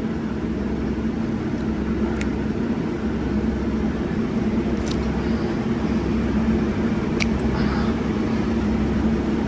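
An engine running steadily in the background, with three sharp clicks of hand snips snapping shut as they struggle to cut through.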